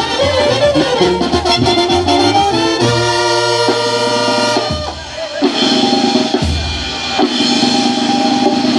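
Mexican banda music: a brass band with drums playing, holding a long chord about three seconds in, easing briefly near the middle, then picking up again.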